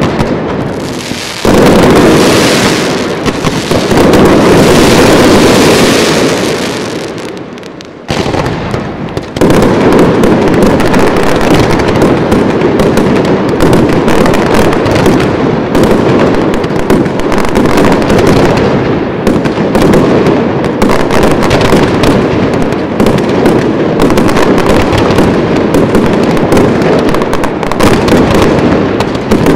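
Fireworks display: loud sustained blasts in the first seven seconds or so, dying away, then from about eight seconds in a dense, unbroken crackle of rapid bangs.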